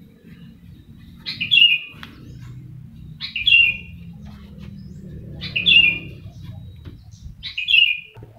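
A bird calling a short, sharp chirp four times, about every two seconds, over a low steady rumble.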